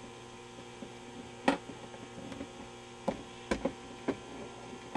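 Vintage Admiral 20X11 television set running with a steady low mains hum and a string of overtones. A few short clicks break in, one about a second and a half in and a cluster around three to four seconds.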